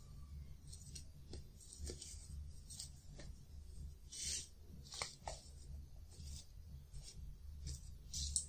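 Light clicks, taps and brief rubbing of small plastic toy pieces being handled and set down on a tabletop, over a low hum. The sharpest scrape comes near the end.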